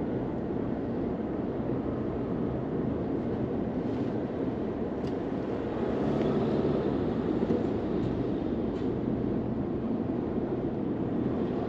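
Steady road and engine noise of a moving car heard from inside its cabin.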